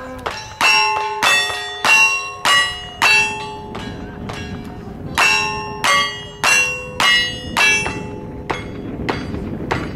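Gunshots in quick succession, each with the clang of a struck steel target ringing on after it. Five shots about half a second apart, a pause of about two seconds, five more, then three quieter shots near the end.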